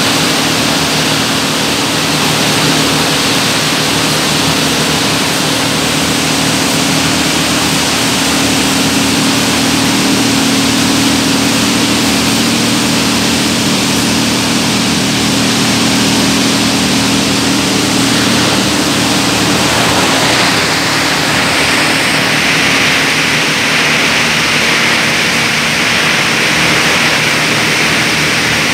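Costarelli plastic agglomerator and its loading conveyors running at full production: a loud, steady industrial din with a low hum. About two-thirds of the way through, the hum fades and a higher, hissing noise takes over.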